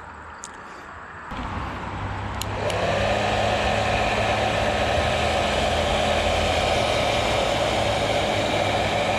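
Electric hot-air blower switched on about a second in, its fan spinning up with a rising whine to a steady whir, in use shrinking heat-shrink tubing over a wire splice.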